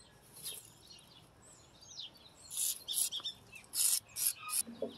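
WD-40 aerosol can spraying through its straw in several short hissing bursts, mostly in the second half, loudest near the end: penetrating oil going onto a rusty shift lever and linkage.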